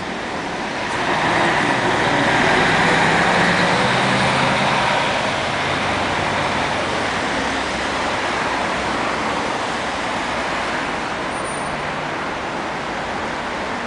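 Mercedes-Benz Travego coach's diesel engine pulling away and driving off, loudest a couple of seconds in, then fading into steady city traffic noise.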